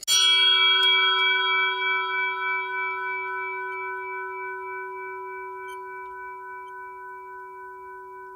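A bell struck once, then ringing on with several tones at once and slowly fading, with a slight wavering in the upper tones.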